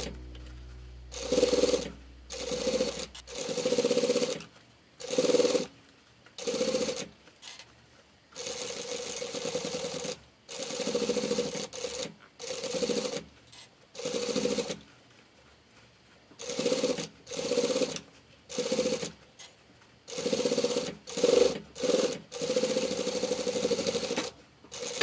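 Sewing machine stitching in about twenty short bursts, stopping and starting as the fabric is turned around a curved seam of a round bag.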